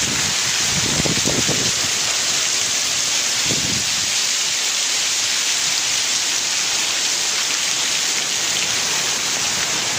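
Heavy tropical rain pouring down, a dense, steady hiss of rain striking the ground and roofs.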